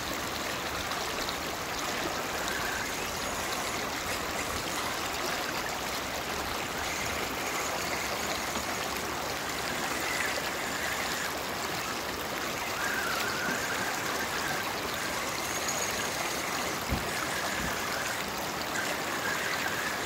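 Shallow creek water running steadily over a rocky bed.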